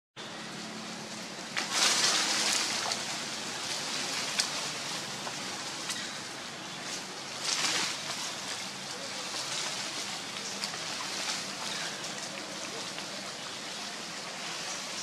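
Steady outdoor background hiss, with louder swells of hissing about two seconds and seven and a half seconds in, and a few sharp faint clicks.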